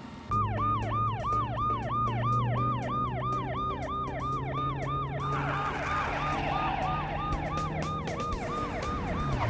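Police siren on a police tow truck sounding a fast yelp, each cycle dropping in pitch, about three times a second. Under it is a steady engine hum as the truck drives off, and a hiss of road noise joins about halfway through.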